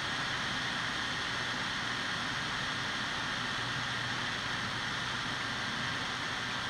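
Steady, even hiss of background noise that does not change; no swallowing or pouring sounds stand out from it.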